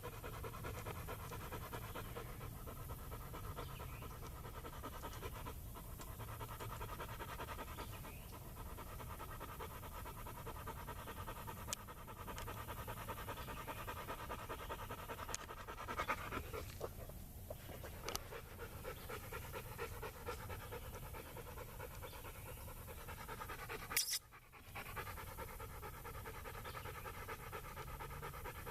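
A dog panting steadily and rapidly close by, with a sharp click about three-quarters of the way through.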